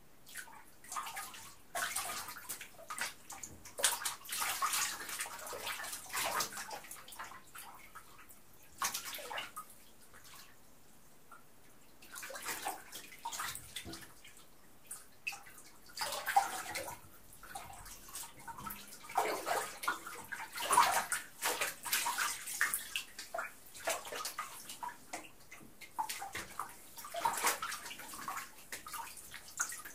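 Water sloshing and splashing in a filled bathtub as a person moves about in it, in irregular bursts with a brief lull about ten seconds in.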